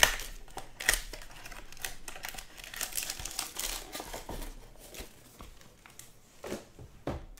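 Foil trading-card pack wrappers crinkling and crackling as the packs are handled and lifted out of their box, with a few sharp clicks and taps among them.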